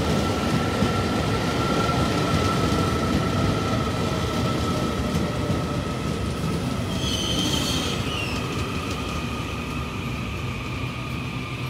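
Taiwan Railway EMU800 electric multiple unit rolling into the station and slowing. Its steady high whine drifts slowly lower over the rolling noise, and a brief high squeal comes about seven seconds in.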